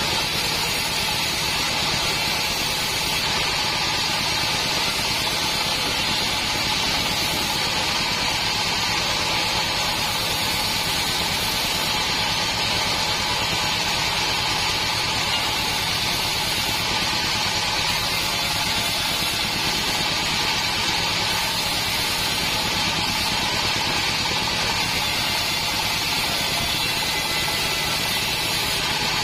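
Assembled bandsaw mill running and sawing salam wood boards, a steady unbroken machine drone with a few constant tones in it.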